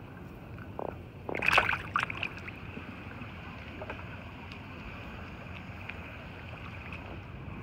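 A croaker grunts briefly in the hand, then the fish is let go and drops into the water with a short splash. A faint steady high buzz runs underneath.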